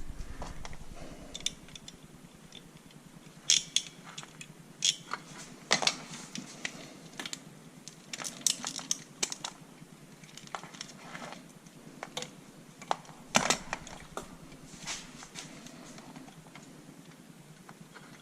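Irregular sharp clicks and light knocks of small parts and tools being handled during assembly work, with quiet gaps between them; the loudest come about three and a half, six and thirteen seconds in.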